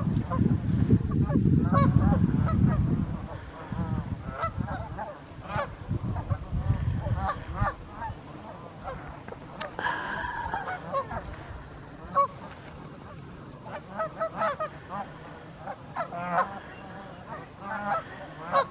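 A flock of Canada geese honking, many short calls overlapping and repeating. A loud low rumble fills the first few seconds.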